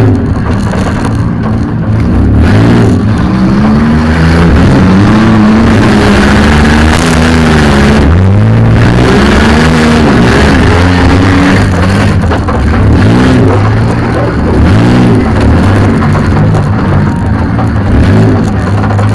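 Demolition derby van's engine revving up and easing off again and again, heard from inside the van's cab, with a bang about seven seconds in.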